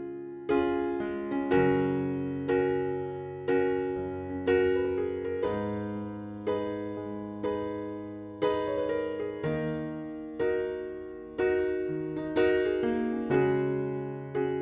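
Background music: a gentle electric piano playing chords, with notes struck about once a second and fading between strikes.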